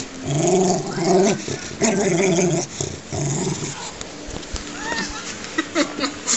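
Dachshund growling in play while tugging on a stuffed toy: about four throaty growls in quick succession, then it goes quieter after about three seconds.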